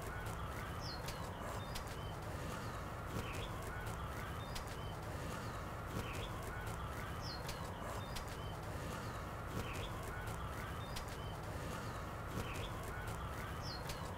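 Metal spoon and chopsticks stirring a moist chopped vegetable and sausage filling in a glass bowl, with many light clicks of the utensils, while birds chirp now and then in the background.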